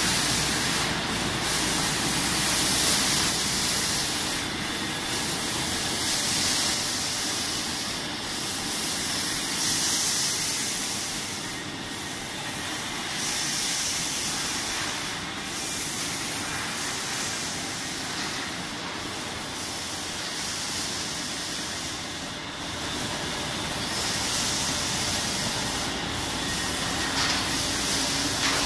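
Sidel SBO 10 stretch-blow moulding machine for PET bottles running, with a steady hiss of air. The hiss thins briefly about every three and a half seconds.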